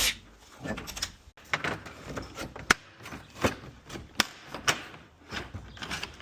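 Irregular sharp clicks and knocks, a few each second, from garage door hardware being handled and taken down, with the loudest knock about two and a half seconds in.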